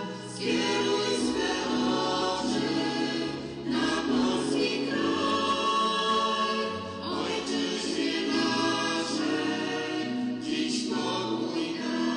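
A choir singing a Marian hymn in slow, sustained phrases, with short breaks between phrases about every three to four seconds.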